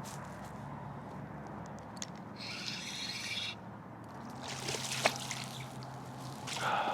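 A bass being landed and handled: brief bouts of splashing and rustling, with a sharp knock about five seconds in, over a faint low steady hum.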